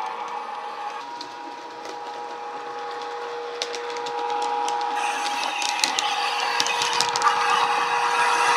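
Sound decoder of a Hornby Class 92 model electric locomotive playing a steady electric traction whine through its speaker. The whine grows louder as the model approaches, with clicks and a rising hiss of the model's wheels running on the track in the second half.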